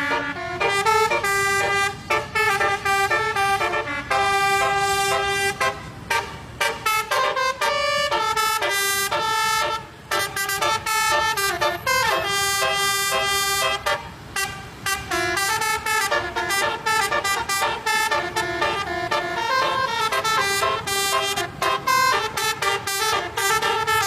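Basuri telolet multi-tone horn playing a song melody, a quick run of changing horn notes with short gaps between phrases.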